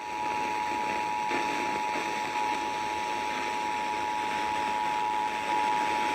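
Emergency Alert System two-tone attention signal (853 and 960 Hz) held steadily over a radio's hiss, announcing that an emergency alert message is about to be read.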